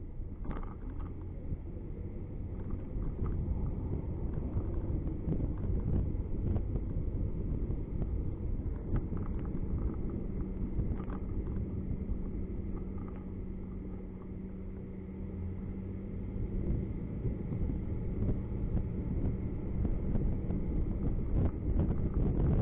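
Car interior noise while driving: a low, steady rumble of road and engine, with a steady hum rising out of it for several seconds in the middle and a few faint clicks near the start and the end.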